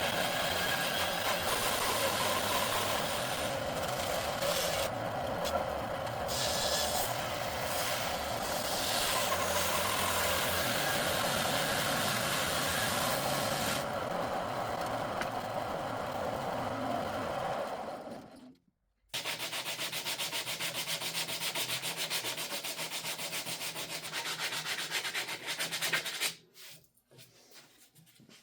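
A power woodworking tool working on wood, a steady noisy whir. It breaks off briefly about two-thirds of the way through and resumes with a faster, finer pulsing, then dies away near the end.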